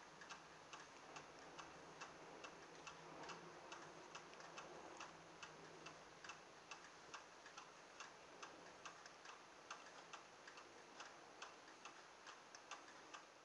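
Faint, steady ticking, about two ticks a second, over low room noise, with a faint low hum during the first few seconds.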